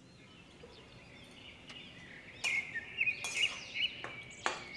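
Flat steel spatula scraping and stirring potatoes and long beans in an iron kadhai, a few sharp scrapes starting about halfway in, with faint bird chirps in the background.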